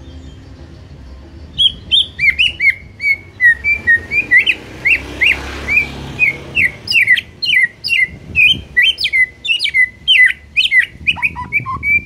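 White-rumped shama singing: starting about a second and a half in, a fast, loud run of sharp whistled notes sweeping up and down, several a second, with a few lower notes near the end.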